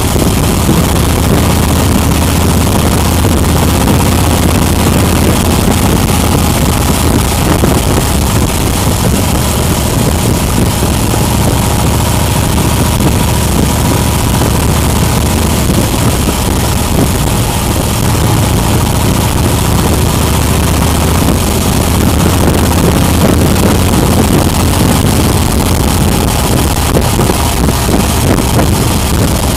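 Motorcycle engine running steadily at cruising speed, heard onboard the moving bike, under a constant rush of wind and road noise on the microphone.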